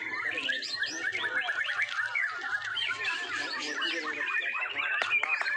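Several white-rumped shamas singing at once, their songs overlapping into a dense, continuous stream of quick whistles, trills and chirps.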